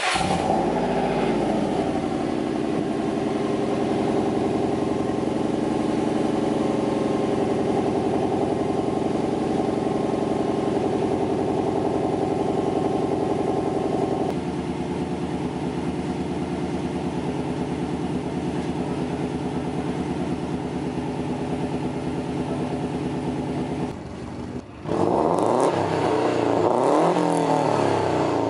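2002 Subaru WRX's turbocharged flat-four starts cold and idles steadily, through a Cobb cat-back exhaust fed by a high-flow divorced-wastegate Invidia downpipe, with no catalytic converter ahead of the downpipe. The idle steps down a little about halfway through. Near the end the sound changes to revs rising and falling.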